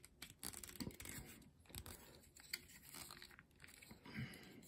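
Faint clicking and rubbing of plastic toy parts as a Transformers Kingdom Tigatron action figure is handled and folded into tiger mode, with scattered small clicks throughout.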